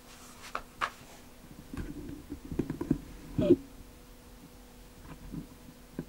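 Handling of a paperback book: soft paper rustles and light taps as fingers move over the cover and the book is laid on a carpet. There is a brief pitched sound about three and a half seconds in, and a faint steady hum underneath.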